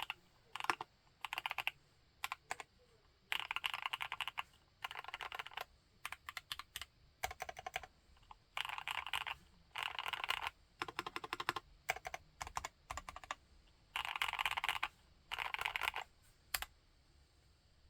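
Typing on a TACWORKS TAC T2 mechanical keyboard with Gateron Yellow linear switches: fast runs of keystrokes, each about a second long, broken by short pauses and single key presses, stopping near the end.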